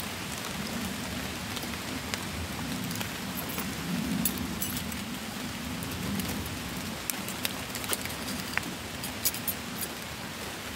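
Steady rain falling, with scattered sharp ticks.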